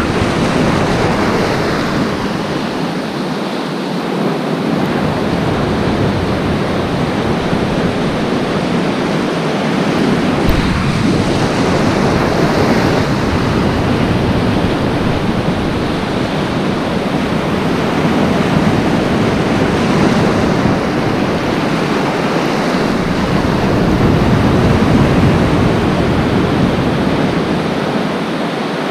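Surf washing over a shallow reef flat: a steady rush of breaking, foaming water, with wind buffeting the microphone.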